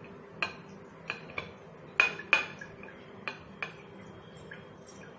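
Light metallic clinks from a stainless steel plate as dough is pressed and spread on it by hand, about seven scattered taps with the two loudest close together about two seconds in.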